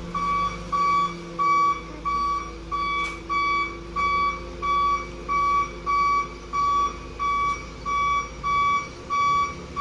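Reversing-warning tone from a 12-volt electric bus horn unit: a single high beep repeating steadily about twice a second.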